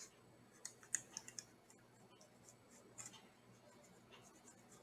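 Faint, sparse clicks and scratches of a pencil point tracing lines on tracing paper laid over a soft leather-hard clay slab, a cluster in the first second and a half and a few more about three seconds in.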